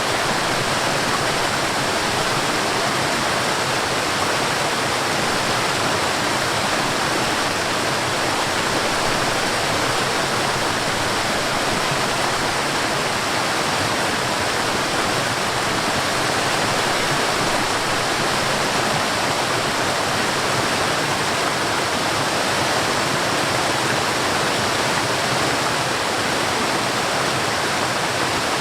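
Forest waterfall: water falling and rushing in a steady, unbroken hiss.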